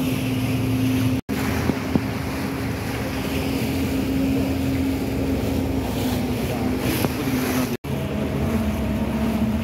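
A passenger boat's engine running steadily under way, a low hum with a held drone, mixed with wind on the microphone and rushing water. The sound cuts out for an instant twice.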